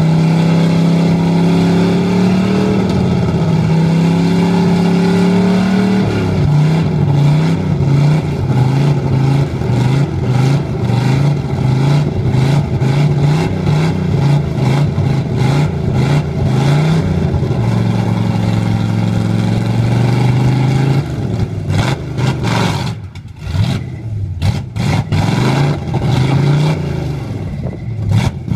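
Cammed 383 small-block Chevy V8 in a mud truck revving hard while bogged in a deep mud hole on 54-inch Boggers tires. The revs hold high for several seconds, then rise and fall over and over as the throttle is worked, hold high again, and near the end drop lower and turn choppy.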